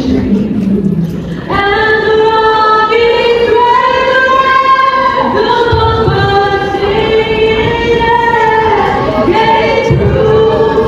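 A large choir of students singing together, slow and sustained, holding long notes, with a short breath pause about a second in.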